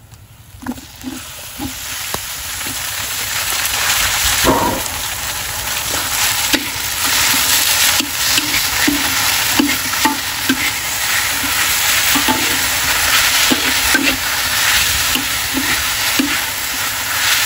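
Chopped eel pieces sizzling in a hot steel wok with fried palm sugar and garlic. The frying hiss swells over the first few seconds as the eel goes in. A metal spatula scrapes and taps against the wok as it stirs.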